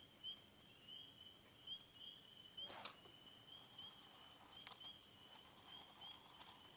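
Near silence, with faint short rising chirps repeating about twice a second from a small calling animal, and one light knock about three seconds in.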